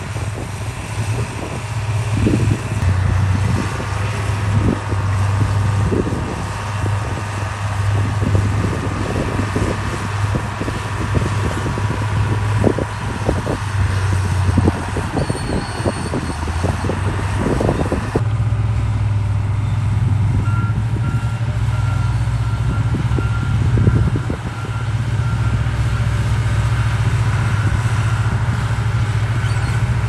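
Diesel engine of heavy earthmoving machinery running steadily, with repeated metallic clanks and rattles through the first half. After an abrupt change a little past halfway, the engine drones on more evenly and a reversing alarm beeps repeatedly.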